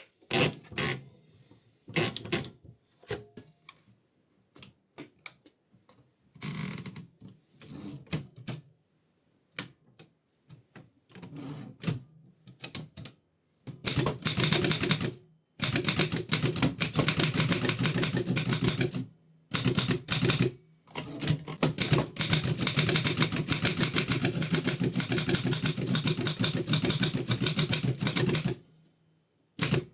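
1933 Continental Standard manual typewriter being typed on, its type bars striking the platen. The keystrokes come singly and scattered at first, then from about halfway through in a fast, steady run with a few short pauses.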